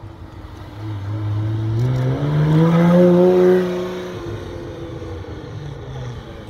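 Ferrari Testarossa's flat-twelve engine accelerating past, its note climbing in pitch and getting louder to a peak about three seconds in, then dropping in pitch and fading as the car pulls away.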